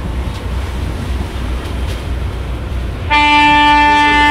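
A ship's horn sounds one long, steady blast, starting about three seconds in, over a steady low rumble.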